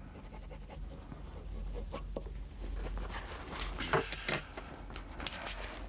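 Faint scratching and rustling with a few light taps: a quill pen writing on paper and sheets being handled on a table.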